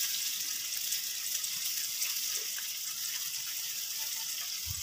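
Avocado caterpillars frying in oil in a wok over a wood fire, the oil sizzling with a steady hiss.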